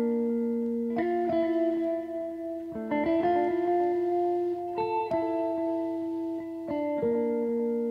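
Background music led by guitar, with sustained chords that change every second or two.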